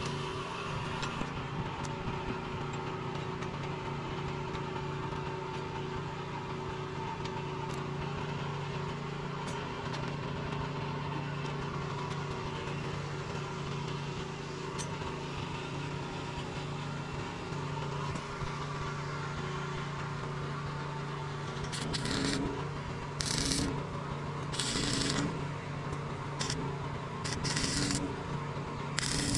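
A steady engine-like hum runs throughout. From about two-thirds of the way in, a stick (arc) welder strikes a series of short tack welds on a steel-pipe gate latch, six or so brief crackling bursts a second or so apart.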